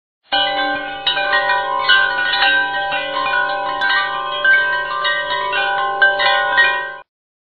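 Chime-like music laid over the video: many overlapping, steadily ringing bell tones, like wind chimes, starting abruptly just after the start and cutting off abruptly near the end.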